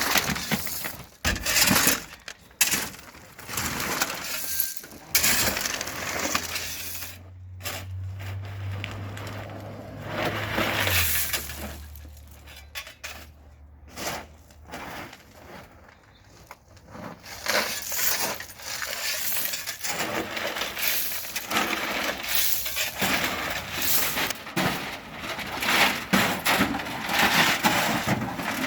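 Gravel being unloaded from a one-ton pickup's bed: dense, irregular scraping, crunching and clattering of stones. A low steady hum joins from about six seconds in, drops in pitch around eleven seconds and fades a few seconds later.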